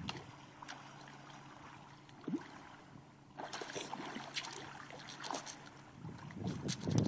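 Shallow seawater splashing and trickling as a Staffordshire Bull Terrier wades and scrambles at the rocky edge, with many small splashes from about halfway through. A short rising squeak about two seconds in.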